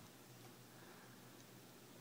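Near silence: faint room tone, with nothing heard from the fanless, heatsink-free Raspberry Pi as it runs.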